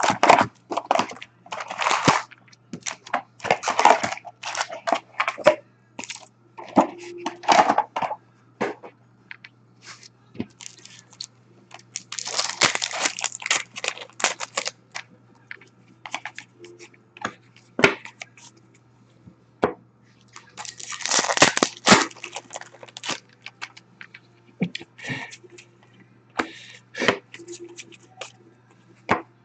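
Sealed box and foil packs of SP Authentic hockey cards being opened by hand: wrappers crinkling and tearing with scattered clicks and cracks of cardboard, in irregular bursts with short pauses between.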